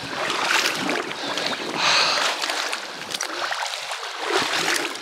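Splashing and sloshing of shallow, muddy pond water as a person wades through it in chest waders chasing fish, with a louder splash about two seconds in.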